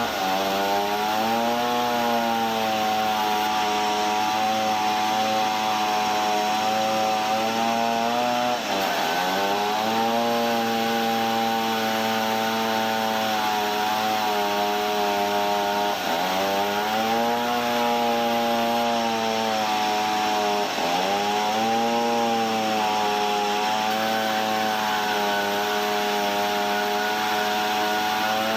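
Sawmill saw running at a steady high pitch, the pitch dropping sharply and winding back up several times as the saw takes the load of the cut.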